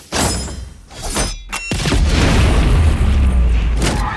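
Film-trailer sound effects: a sharp crash at the start, a second hit just over a second in, then a long, deep boom from under two seconds in, with music underneath.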